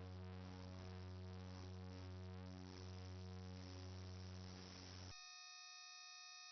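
Quiet electronic ambient music over a steady low drone. About five seconds in it cuts off abruptly into a sustained cluster of steady pure electronic tones.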